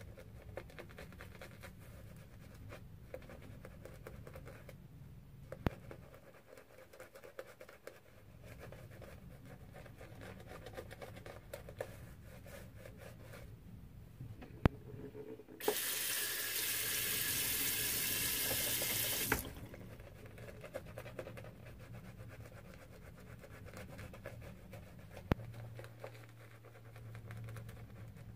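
Semogue 1470 shaving brush working lather over the face with soft, faint swishing and a few light clicks. Midway a water tap runs for about four seconds, starting and stopping suddenly, the loudest sound.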